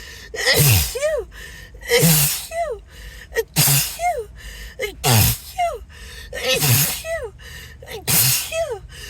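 A person's sneezing fit: six sneezes in quick succession, about one every one and a half seconds. Each is a voiced "haa-choo" set up by a gasping in-breath whose pitch rises and then falls.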